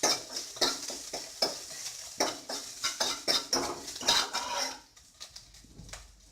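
A utensil stirring and scraping against a pan in a run of quick strokes, about two or three a second, as crushed shallots, ginger and garlic sauté in oil with light sizzling. The stirring stops about three-quarters of the way through.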